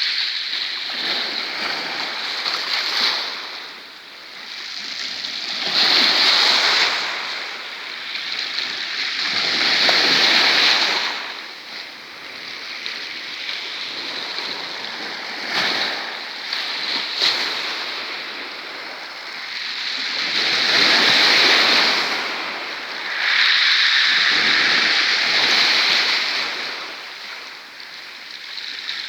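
Black Sea surf breaking on the shore, the wash of the waves rising and falling in repeated swells every few seconds.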